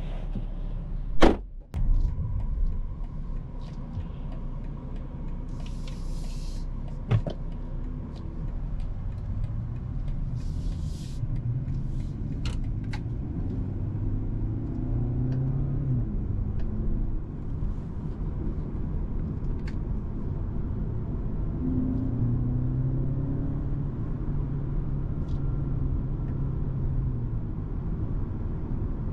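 Cabin sound of a 2021 BMW 228i Gran Coupe's turbocharged 2.0-litre four-cylinder driving, its note climbing, dropping and climbing again over a low road rumble. A sharp knock about a second in is the loudest sound.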